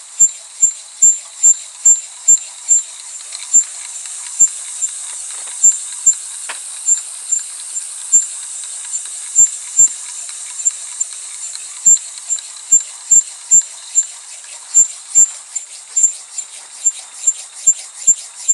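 Filing machine driven by a crank disc on a metal lathe, working in a steady reciprocating rhythm: a sharp click with a high metallic ping at each stroke, about two to three a second, over a steady high hiss.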